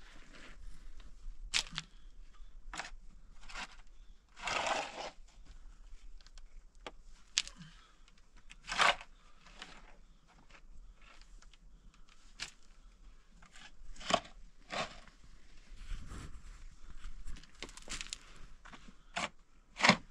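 Long-handled digging tool chopping and scraping into packed earth and gravel on a cave floor. Irregular crunching strokes come every second or few, the loudest about nine seconds in and again near the end, with dirt and stones rattling loose.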